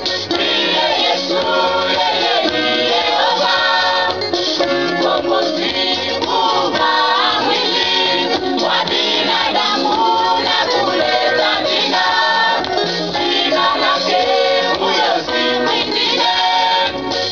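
Women's church choir singing a gospel song live, many voices together, over a steady beat.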